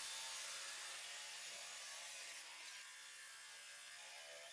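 Cordless angle grinders cutting steel square hollow section, heard faintly as a high, even hiss that slowly fades.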